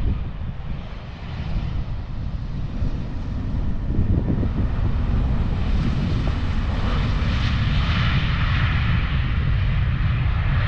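Embraer E190 jet airliner's two turbofan engines as it touches down and rolls out along the runway: a steady jet rumble that swells about four seconds in and stays loud, with a hissing whine growing stronger from about seven seconds.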